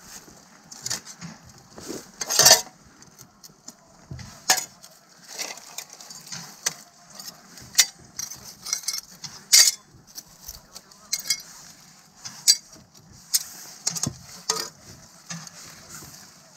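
Broken window glass from old wooden sash frames clinking and chinking as shards are pulled out and dropped onto a pile of broken glass: irregular sharp clinks, the loudest about two and a half seconds in and again near ten seconds.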